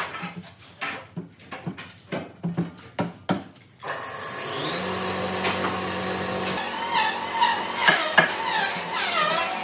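Woodworking tool work: a run of irregular knocks and taps, then after a sudden cut about four seconds in, a power tool running steadily with a high whine, its pitch wavering near the end.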